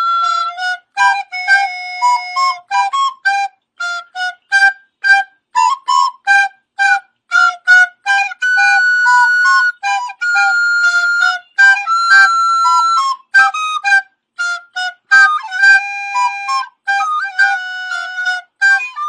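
Background music: a solo flute-like melody of short, detached notes, with a few longer held notes, and no accompaniment underneath.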